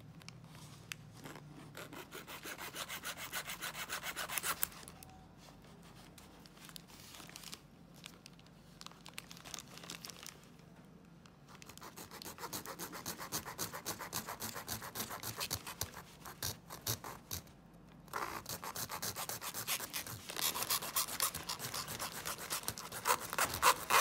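A bare hacksaw blade sawing back and forth through the hard plastic of a clothing security tag, in several bouts of quick strokes with short pauses between.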